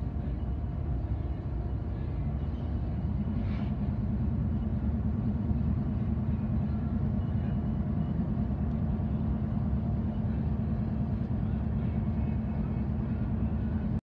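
Steady low rumble of vehicle and engine noise, with a low hum joining about three seconds in.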